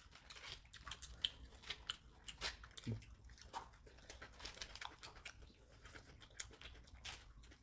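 People eating fried chicken: faint chewing with many small, irregular crunches and mouth clicks.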